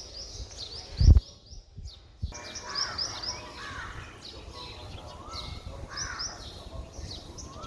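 Birds chirping in quick repeated downward notes, with crows cawing. A loud low thump comes about a second in, followed by a brief drop-out.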